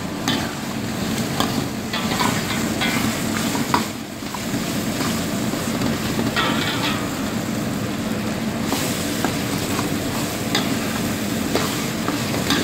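Lamb kadhai sizzling in a large wok-shaped kadhai as the tomatoes break down into a thick gravy. A utensil stirs and scrapes through the food, giving scattered clicks and knocks over the steady sizzle.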